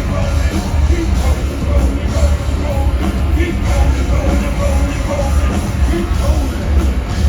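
Live nu-metal band playing loud through a concert PA, heard from close in the crowd: heavy bass and drums with a vocal over the top.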